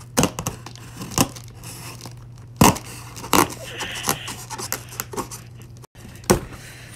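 A knife slicing through the packing tape on a cardboard shipping box: a handful of sharp cutting and ripping strokes at uneven intervals, with scraping against the cardboard, then the flap being pulled open. A steady low hum runs underneath.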